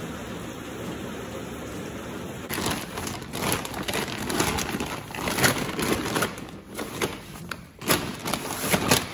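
A steady hiss, then from about two and a half seconds in the loud, irregular crinkling and rustling of a plastic feed bag as an animal rummages inside it with its head.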